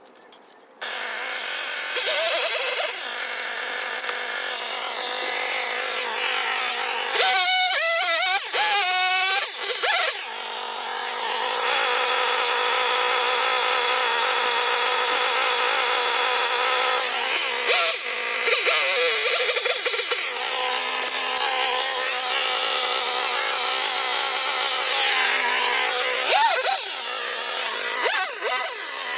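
Chainsaw running steadily with a high buzzing engine note, its pitch wobbling briefly three times.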